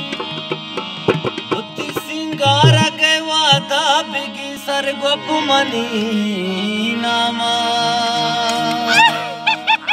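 Live folk music: a man sings a long, wavering, drawn-out melodic line into a microphone over a steady instrumental drone, with hand-drum strokes in the first few seconds.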